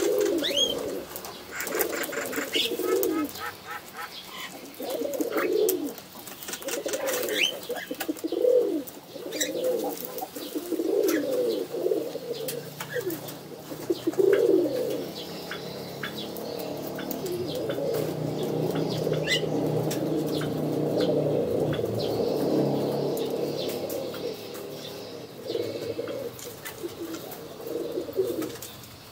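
Pigeons cooing: low, throaty coos repeated every second or so, running together more densely through the middle, with a few faint high chirps and clicks.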